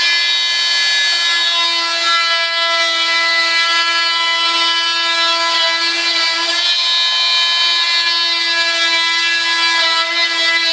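Handheld vibrating saw running steadily with a high, even whine while cutting out a molded gear door part.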